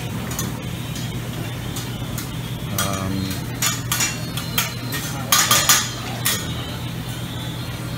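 Dishes and cutlery clinking: a run of sharp clinks and knocks, the loudest cluster a little past halfway, over a steady low hum.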